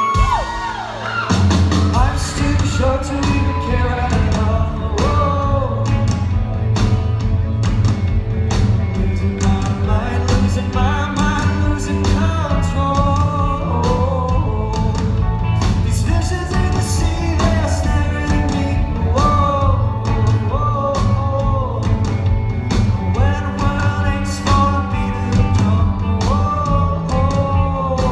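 Live rock song with a male lead singer over a band; the bass and drums come in about a second in and keep a steady beat under the sung melody.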